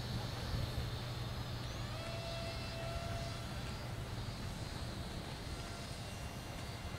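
ZOHD Drift RC plane's small brushless motor and propeller whining faintly in flight. The pitch rises about two seconds in and holds for a second or so, over a steady low rumble.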